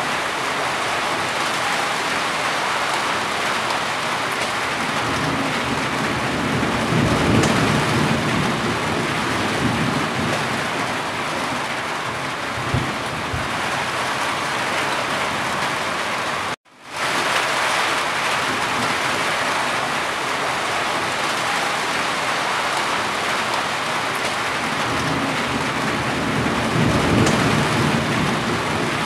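Steady rain on a corrugated roof, with water running and dripping off the eaves. A low rumble swells up twice, about a quarter of the way in and near the end. The sound cuts out suddenly for an instant a little past halfway, then returns.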